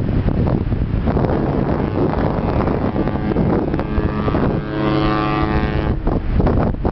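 Cruise ship AIDAaura's horn sounds one steady blast, about a second and a half long, a little past the middle, and cuts off suddenly. Heavy wind rumble on the microphone runs under it throughout.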